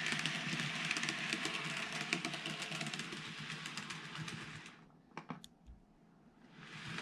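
TOMIX N-gauge JR 103 series model train running on layout track: a steady rattle of wheels and motor with fast, fine clicking. The sound fades to near quiet about five seconds in, with a few lone clicks, then returns near the end.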